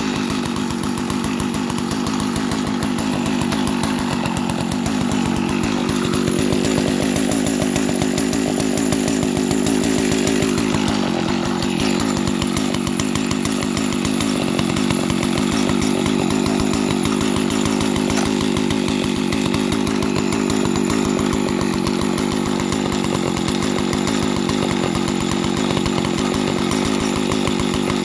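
Dolmar 120si two-stroke chainsaw idling steadily, running with its air filter cover off and the carburetor intake open.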